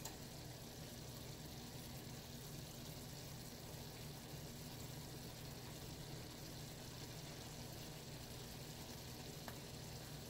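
Faint, steady simmering of curry chicken in its own liquid in an open stainless steel pot, over a low steady hum.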